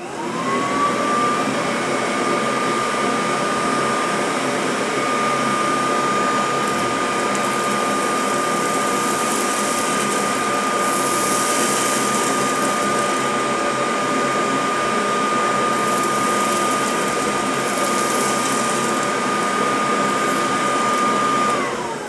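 Vintage Kirby 561 upright vacuum cleaner switched on: the motor spins up within a second to a steady high whine and runs on with the hose tool sucking kitchen dirt off tile, the hiss growing louder in stretches around the middle. Near the end it is switched off and the whine falls away as the motor runs down.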